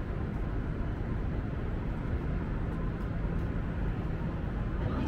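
Steady outdoor background rumble, heaviest in the low end, with no distinct voices or sudden sounds.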